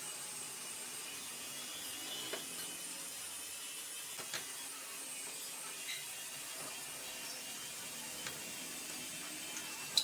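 A few light metallic clicks and taps of hydraulic jack parts being handled with hand tools, spaced a second or two apart, over a steady hiss, with one sharper click near the end.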